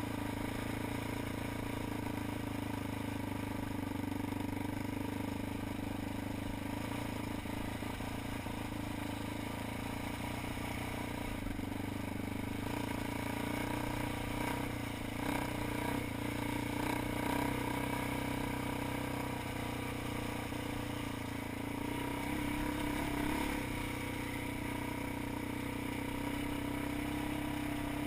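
ATV engine running steadily while riding a trail, its note swelling slightly about halfway through.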